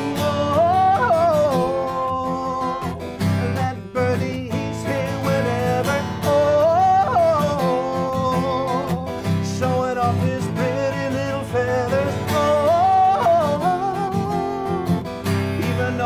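A man singing while playing an acoustic guitar, his voice holding long notes that slide up and down.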